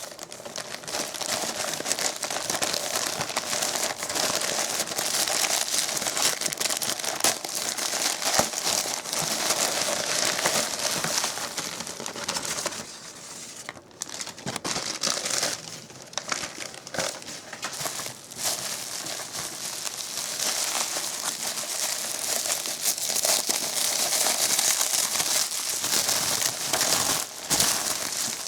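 Packaging being handled and opened with close, continuous crinkling and crackling and many small sharp clicks. It eases off briefly about halfway through, then picks up again.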